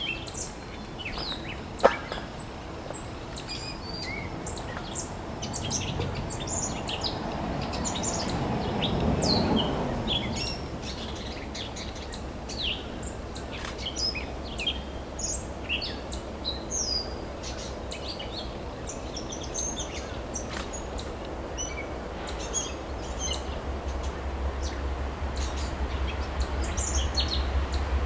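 Several birds chirping and singing, with an even background hiss. There is a sharp click about two seconds in, and a soft rushing swell that rises and fades around nine seconds. In the last few seconds a low rumble builds as a train approaches.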